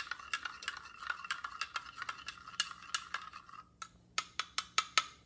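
A stirrer clinking rapidly against a glass beaker while a solid is stirred into water, the glass giving a faint ring under the clicks. The ringing stops a little after halfway, and a few louder, separate clinks follow.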